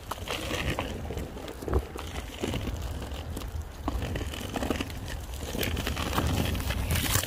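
Irregular crunching and crinkling with scattered clicks, over a steady low wind rumble on the microphone.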